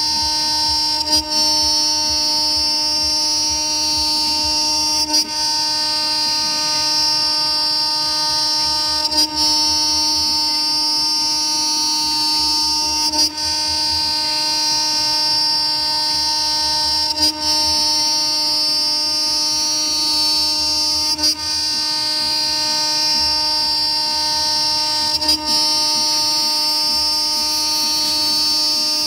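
A 24,000 rpm, 2.2 kW CNC router spindle milling a slot in aluminium plate, giving a steady, high, multi-tone whine. About every four seconds there is a brief catch in the sound.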